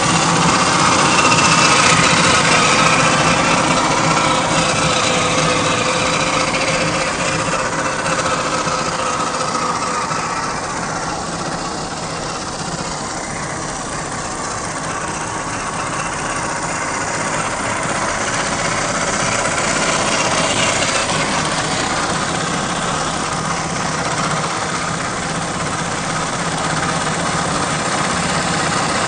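Gmade GS02F Buffalo RC scale truck driving: its electric motor and gearbox whine steadily, the pitch shifting a little with throttle, over the rustle of its tyres on dirt. It grows somewhat fainter about a third of the way in and louder again later.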